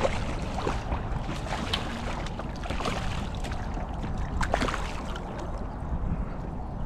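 Wind buffeting the microphone, with scattered light splashes and sloshing as a hooked largemouth bass thrashes in shallow water at the bank.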